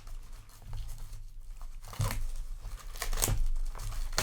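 Plastic shrink wrap being torn and crinkled off a trading-card display box, in irregular rustling rips that get louder about two seconds in.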